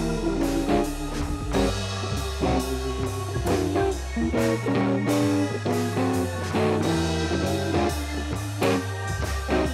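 Instrumental background music: plucked guitar notes over a bass line and drums, with a steady beat.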